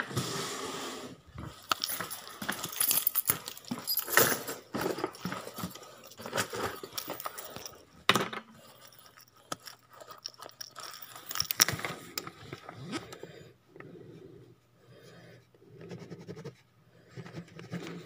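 Handling noise from a phone being carried and moved about: scraping, rustling and sharp clicks and knocks, with a few louder knocks. It turns quieter about two thirds of the way in, leaving soft thuds about once a second.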